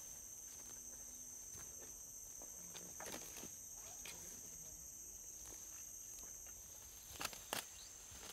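Faint, steady high-pitched insect chorus. A few soft rustles or clicks stand out, two of them close together near the end.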